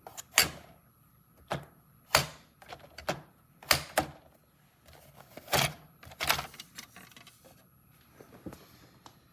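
Hard plastic clicks and knocks, about ten at uneven intervals and fewer and fainter near the end, from a Brother P-touch PT-D210 label maker and its tape cassettes being handled.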